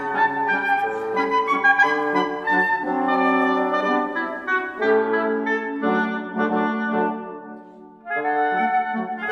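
Instrumental background music, a melody played on wind instruments in held notes, with a short lull about eight seconds in.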